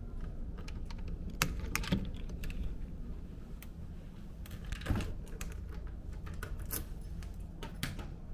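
Key being pushed into and turned in a metal door-knob lock, with the key ring jangling and the latch clicking, then the door opening: a run of sharp clicks and rattles, strongest about a second and a half in and again near the middle, over a steady low hum.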